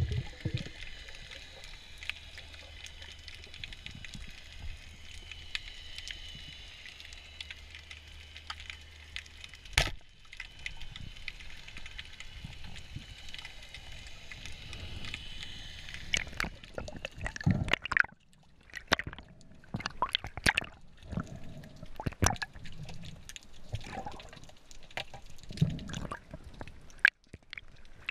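Underwater ambience heard through the diver's camera: a steady watery hiss with a faint high whine in the first half, one sharp knock about ten seconds in, and irregular clicks and knocks in the last ten seconds.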